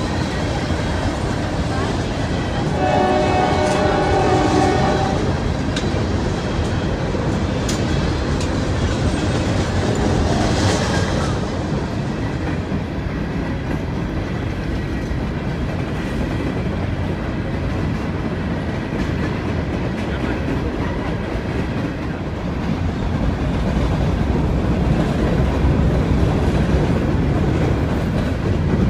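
Freight train of open-top cars rolling through a grade crossing: a steady rumble with wheel clatter. The locomotive's horn sounds a chord for about two seconds, around three seconds in.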